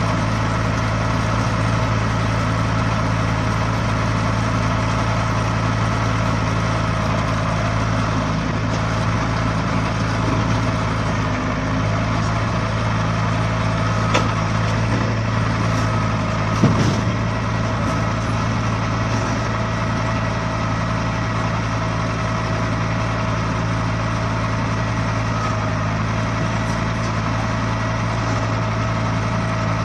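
Heavy vehicle engine idling steadily, with a sharp knock about halfway through.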